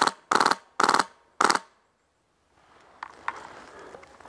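Polar Star HPA-powered airsoft MP5 fired in four short full-auto bursts about half a second apart, each a quick rattle of shots. Two faint taps follow about three seconds in.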